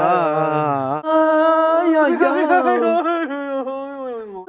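Male voices singing long, drawn-out notes without clear words, the pitch sliding up and down; a second, lower voice holds a steady note underneath for about the first second.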